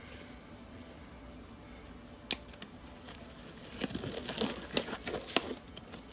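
Handling noises: a single sharp click about two seconds in, then a run of small clicks and rustles near the end.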